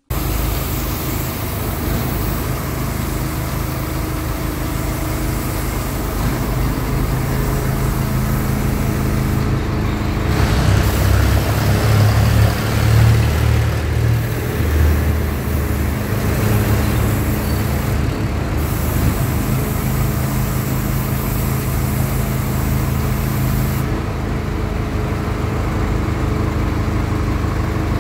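Heavy vehicle engine running steadily with a constant low hum, amid road-traffic noise; it swells louder between about ten and sixteen seconds in.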